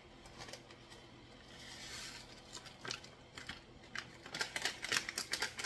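Loose-leaf tea being shaken from its package into a pot of water: dry rustling and crinkling, growing into a rapid crackle in the last second and a half.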